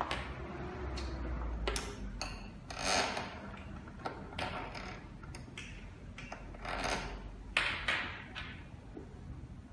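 Irregular clicks, knocks and short scraping rustles of hands handling and fitting the parts and cable of an electronic fingerprint door lock.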